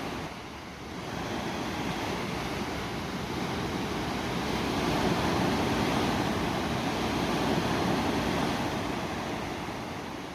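Ocean waves washing onto a shore: a steady surf hiss that swells to a peak in the middle and eases off near the end.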